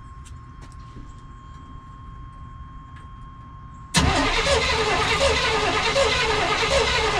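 A faint steady tone for a few seconds, then the 1989 GMC Sierra's throttle-body-injected engine cranks on the starter for about three seconds and stops without catching. Fuel is not reaching the injectors.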